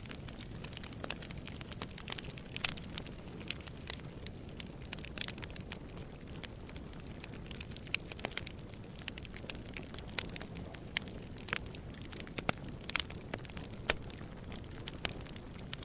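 Wood fire burning in a fireplace, crackling and popping at irregular moments over a steady low rush of flame.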